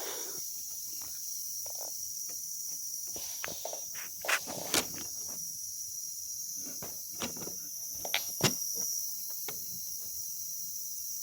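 Small clicks and knocks of an alarm clock being handled and set, scattered irregularly with a few louder ones around the middle, over a steady high-pitched hiss.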